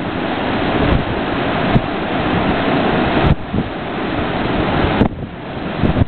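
Ocean surf breaking and washing over rocks at the foot of a cliff: a steady, loud rush of white water that dips briefly twice, with wind buffeting the microphone.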